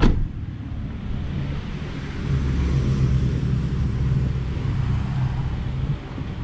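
Motorcycle engine running at a steady pitch, with a sharp knock right at the start.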